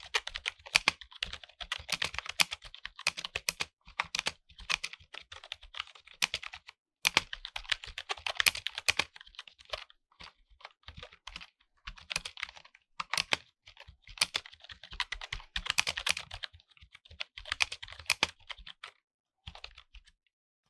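Typing on an Ajazz K680T wireless mechanical keyboard with brown switches: quick runs of key clicks broken by short pauses, stopping shortly before the end.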